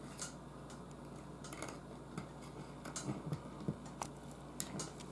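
Faint, irregular small clicks and rustles of electrical wires being handled against a metal ceiling-box mounting bracket, over a faint steady low hum.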